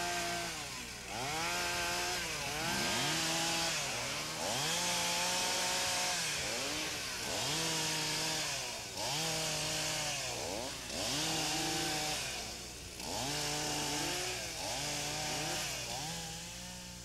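Two-stroke chainsaw revved up and let back down over and over, about once a second, as in a run of quick cuts through brush.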